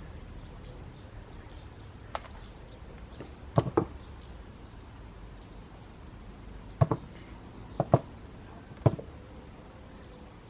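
Small potatoes dropped one by one into a bucket: about half a dozen sharp knocks, some in quick pairs.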